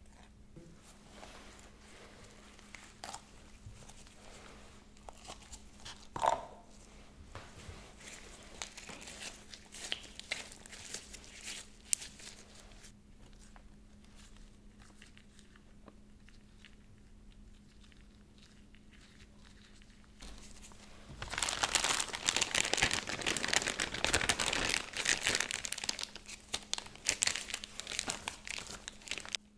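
A plastic piping bag crinkling loudly as gloved hands knead soft clay inside it, starting about two-thirds of the way in. Before that there are only quiet handling sounds with a few light taps.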